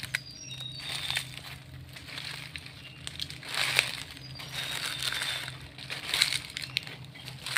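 Footsteps crunching through dry leaf litter on a forest floor, an uneven step every second or so, with a few short high chirps.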